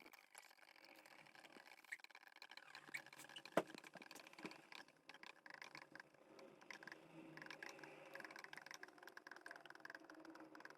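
Faint gurgling of sublimation ink draining from upturned refill bottles into an inkjet printer's ink tanks, with a few light clicks and one sharper click about three and a half seconds in.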